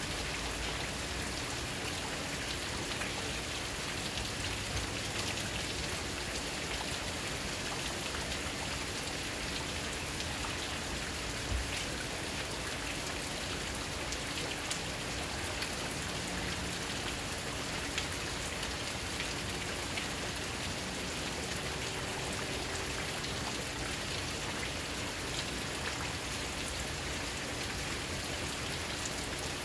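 Steady rain falling outside a window, with scattered drops ticking sharply on nearby surfaces and a couple of louder drop hits.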